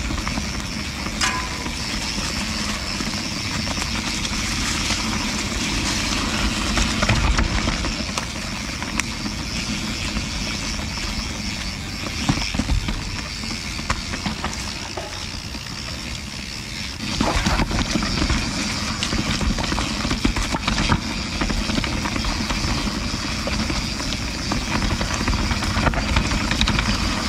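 Canyon Spectral CF carbon mountain bike riding a rough dirt trail: tyres rolling over rocks and roots, with the chain and frame rattling over bumps and wind buffeting the microphone. The noise eases for a moment a little past the middle, then picks up again.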